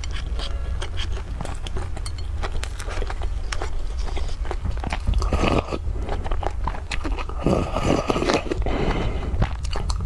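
Close-miked mouth sounds of eating: wet chewing and small lip clicks, then from about five seconds in repeated slurping sips of soup from a paper cup.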